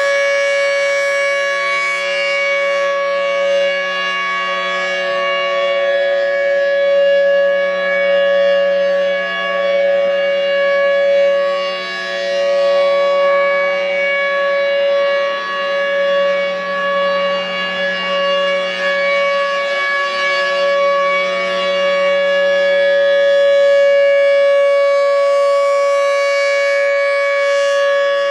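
Federal Signal Thunderbolt 1003 civil defense siren sounding a steady tone at full pitch during its test alert. The tone holds one pitch throughout while the loudness swells and dips slightly as the rotating horn turns.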